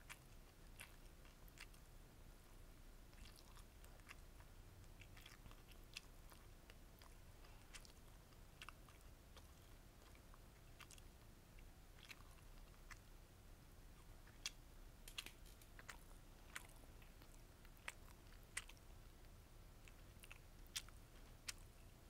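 Faint, close-miked chewing of beef bulgogi gimbap: soft mouth sounds broken by short crisp crunches from the vegetables in the roll, more frequent in the second half.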